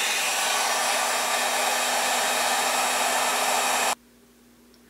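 Heat gun blowing a steady rush of hot air with a faint motor hum, shrinking heat-shrink tubing over crimped thermistor wire joints. It cuts off suddenly about four seconds in.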